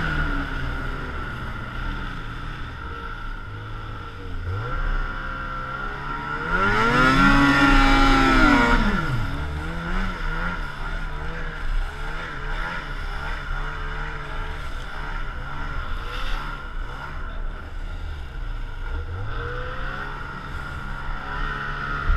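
Snowmobile engine heard from the rider's seat, its pitch rising and falling with the throttle, and a steady whine running alongside. About seven seconds in it revs up hard, the loudest part, then drops back.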